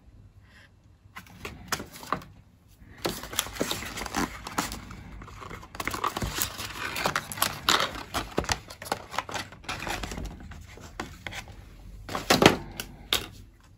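Cardboard and plastic packaging of a boxed computer mouse being handled and opened by hand: a run of irregular scrapes and crackles, with a sharper, louder crack near the end.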